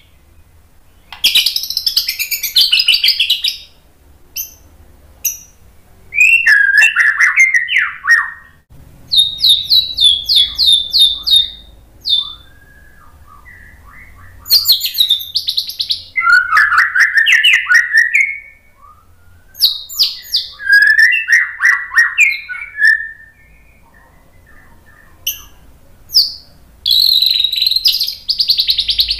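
White-rumped shama (murai batu) singing: loud, varied phrases of two to four seconds made of rapid repeated notes and whistles, separated by short pauses, with a few single call notes in the gaps.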